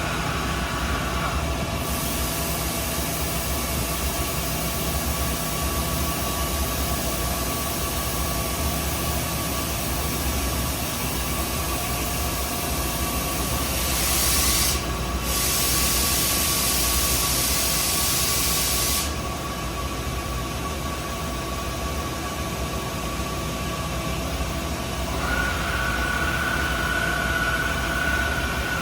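Spindle of a CAT-50 5-axis vertical machining center running a warm-up cycle at moderate speed: a steady whine at a couple of pitches. A loud hiss starts about two seconds in, breaks off briefly, and stops around two-thirds of the way through, and a higher whine joins near the end.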